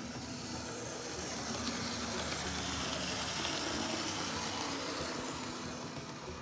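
Lima OO-scale diesel parcels railcar in BR maroon running on model railway track, its repaired motor whirring and wheels rolling on the rails. The sound swells as it passes close, loudest about halfway through, then fades.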